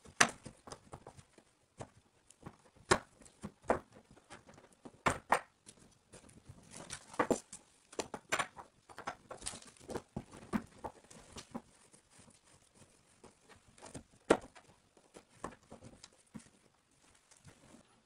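Irregular clicks and knocks of drain and overflow fittings being handled and fitted into an acrylic bathtub, with half a dozen sharper knocks among many lighter taps.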